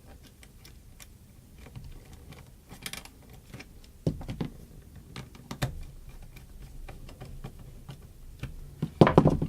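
Irregular small clicks and taps of hand tools and small plastic parts being handled, with a couple of louder knocks midway and a louder clatter near the end.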